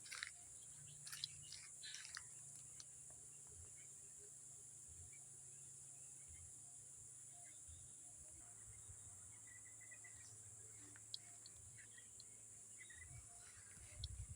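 Near silence with a faint, steady, high-pitched insect drone, and a few faint short chirps and clicks.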